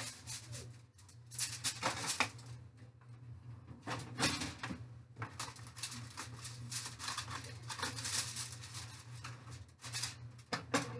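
Disposable aluminum foil baking pan and its foil cover crinkling and clattering as the pan is lifted out of the oven, set on the stovetop, and the foil peeled back, in irregular crackly bursts.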